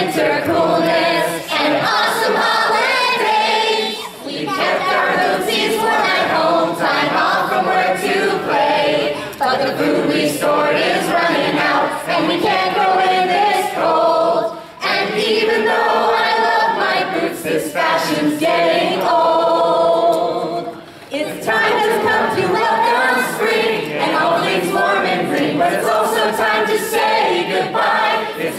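A group of voices singing a song together a cappella into microphones, without instruments, with short breaks between phrases.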